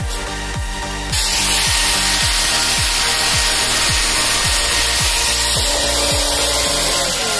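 Angle grinder with a cutting disc, starting about a second in and cutting through a steel coil spring with a loud, steady hiss, its pitch falling near the end as it spins down.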